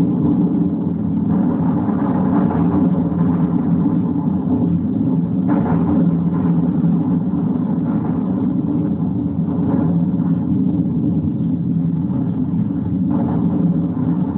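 Sound-effect re-creation of a WWII air raid: a steady, dense drone of piston aircraft engines, with brief louder noises about five and a half, ten and thirteen seconds in.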